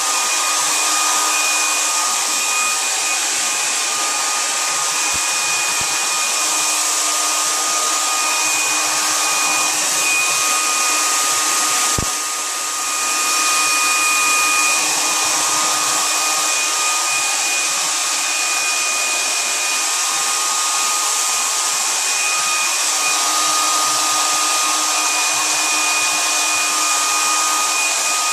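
Hair dryer running steadily: a loud, even rush of air with a constant motor whine. About twelve seconds in there is a single click and the air noise dips briefly before steadying again.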